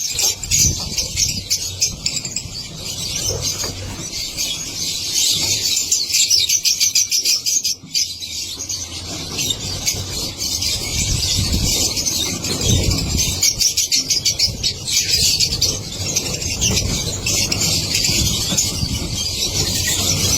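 A colony of lovebirds chattering: many rapid, high-pitched chirps overlapping continuously.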